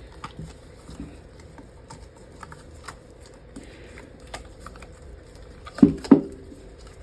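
Silicone mold being worked loose and peeled off a cured resin jar: scattered small clicks and crackles, then two louder knocks about six seconds in.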